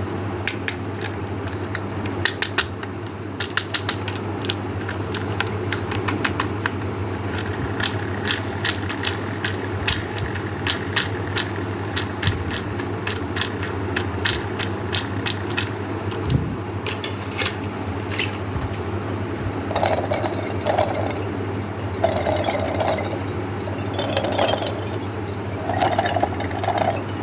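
Small hard candies clicking and rattling against a container, many quick irregular clicks, over a steady low hum.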